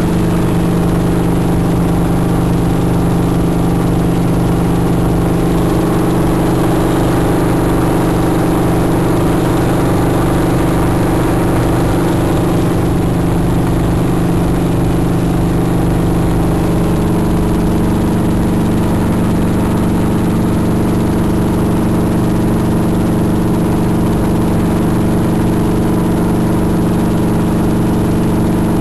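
Piston-engine helicopter in cruise heard from inside the cabin: the engine and rotor drone steadily and loudly, with a slight shift in pitch a little past halfway.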